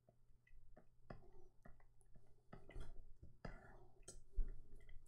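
Faint, irregular clicking of a computer mouse as spots are dabbed out one by one with Photoshop's spot healing brush, with a few soft breath or mouth noises at the microphone.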